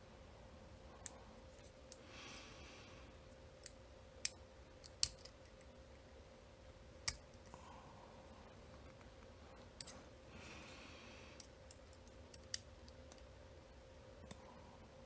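Small metal tool clicking and scraping against a cam lock's crimped sleeve as it is pried at. Irregular sharp clicks, a few louder than the rest, with two short stretches of soft hiss.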